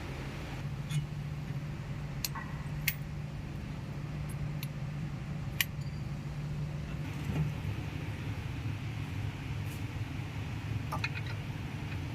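Tata 407 Gold CNG truck engine running at a steady idle, with several short metallic clicks and clinks scattered over it.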